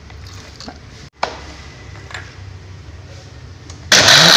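A few light clicks and taps, then near the end an electric blender switches on suddenly and runs loud and steady, grinding chicken meat, egg and ice water into meatball paste.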